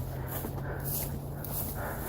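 Footsteps walking through snow, with heavy breathing close to the microphone.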